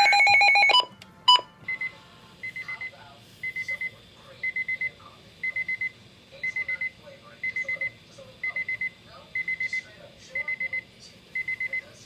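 Midland Public Alert weather radio sounding its warning alarm through its speaker: after a brief loud electronic tone and a click, short groups of about four quick high beeps repeat about once a second. The alarm signals that a warning-level alert, here a severe thunderstorm warning, has been received.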